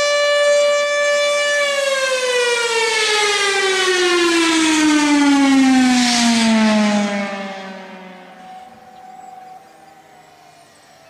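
Federal Signal Thunderbolt 1000 civil defense siren holding a steady tone, then winding down: about a second and a half in its pitch starts falling steadily and it fades out over the next several seconds. Fainter, lower siren tones linger near the end.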